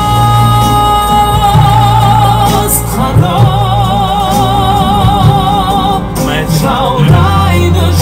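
A male pop singer holds long high notes over a ballad accompaniment with a steady bass. The notes swell into a wide vibrato about three seconds in, and the phrase breaks off near six seconds before the next line starts.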